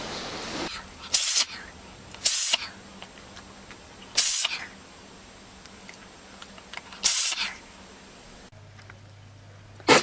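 An animal coughing: four short, sharp, hissy coughs a second or two apart, then one more very short, sharp cough near the end.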